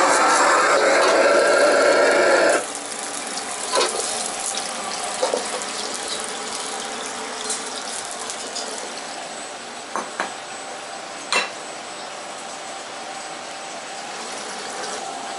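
Egg fried rice being stir-fried in a wok over a gas wok burner: loud sizzling and the steel ladle scraping the wok, which stop abruptly a couple of seconds in. After that a quieter kitchen background with a few sharp clinks of dishes as the rice is plated.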